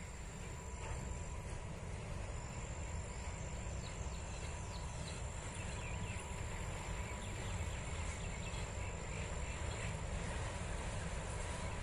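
A low, fluctuating rumble with faint insect chirping over it.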